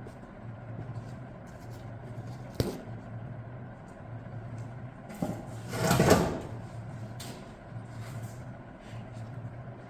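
Workshop handling noises over a steady low hum: a sharp knock about two and a half seconds in, then a longer, louder clatter about six seconds in, and a lighter click soon after.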